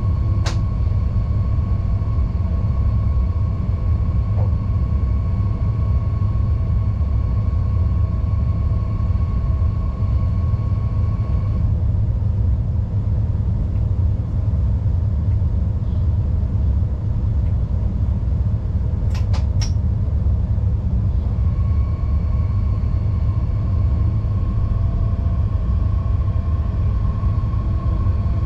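Inside the cab of a class 187 (Bombardier TRAXX AC3) electric locomotive on the move: a steady low running rumble, with a steady high electrical whine from the traction equipment that drops out about 12 seconds in and returns about 21 seconds in. A quick run of sharp clicks comes about 19 seconds in.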